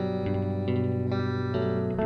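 Music: a guitar played through effects, its notes changing about twice a second.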